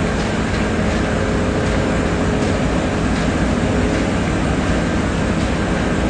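Concrete mixer truck's diesel engine running steadily behind the bench, a loud continuous rumble with a faint steady hum.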